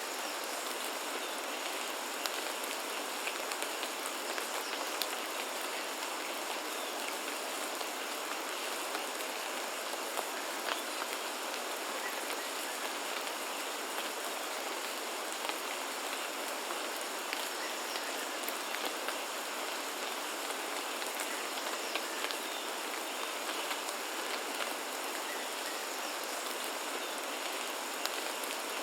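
Steady rain falling in a rainforest, an even hiss with many small drop ticks scattered through it.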